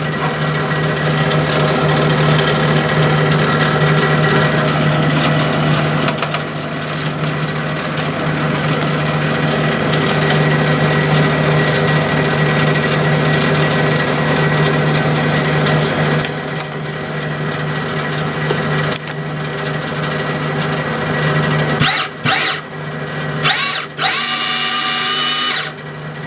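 Hobby MIG welder running with its wire-feed motor and cooling fan going, a steady motor whine over a low hum, which cuts out briefly a few times near the end. The drive roller is not turning and the wire is not feeding through to the torch.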